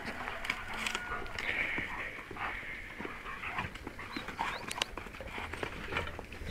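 Kuvasz dog panting hard while play-fighting with a pig, with short scuffling scrapes and clicks and a few brief high squeaks.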